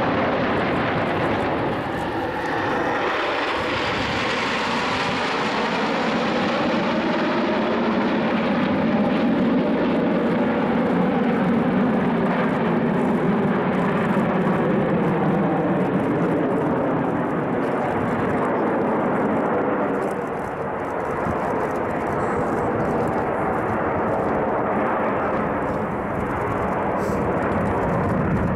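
A formation of ten Aermacchi MB-339 jet trainers passing overhead, their turbojet engines making a steady, loud jet noise. A hollow tone in the noise slowly sweeps up and down as the formation moves across the sky.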